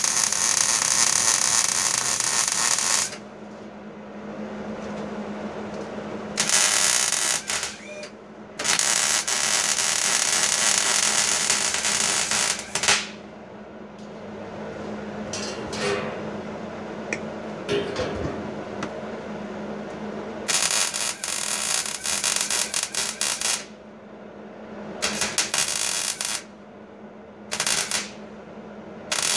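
Electric arc welding on steel: a loud crackling hiss that comes in several bursts of one to four seconds, with quieter pauses between the welds.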